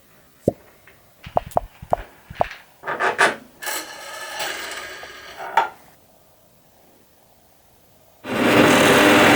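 Homemade sewing-machine-frame scroll saw being handled and set up: scattered clicks and wooden knocks, then a short rubbing scrape. After a pause, the saw starts running near the end, a loud steady mechanical drone.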